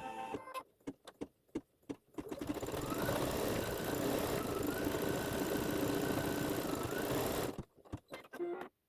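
Computerized embroidery machine stitching out lettering. It starts in short stop-start bursts, then runs continuously and louder for about five seconds with a whine that steps up in pitch, then goes back to short bursts near the end.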